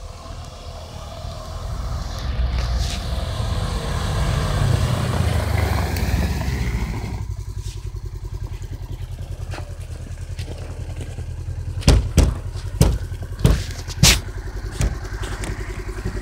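Tracked ATV's engine running hard as the machine drives up, then dropping to a steady idle about seven seconds in. Near the end, about six sharp knocks in quick succession over two seconds.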